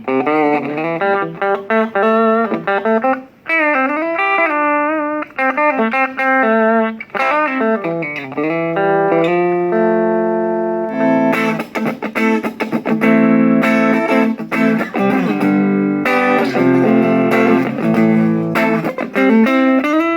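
Electric guitar played through a mini guitar amplifier: a melodic single-note line with bent notes, then held notes and fuller strummed passages in the second half.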